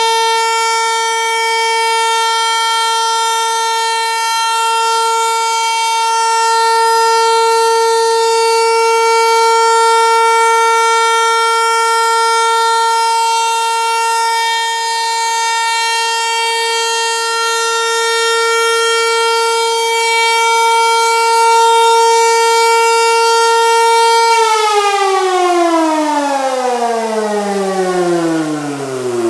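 Hörmann HLS 273 motor siren sounding a steady, unwavering tone, the all-clear (Entwarnung) signal. About 24 seconds in it cuts out and the pitch slides steadily down as the rotor winds down.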